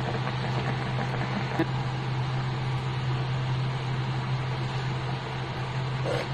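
Steady low hum with an even hiss over it, like a small motor running, unchanging throughout.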